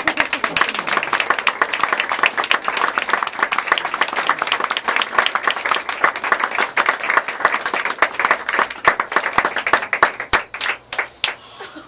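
A small group applauding with dense, steady clapping that thins out to a few scattered claps near the end.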